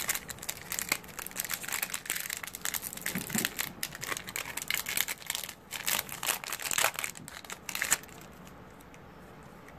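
Yu-Gi-Oh! booster pack's foil wrapper crinkling and crackling rapidly as it is torn open and handled, stopping about eight seconds in.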